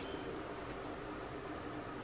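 Steady faint hiss of room tone with a faint low hum underneath; no distinct sound event.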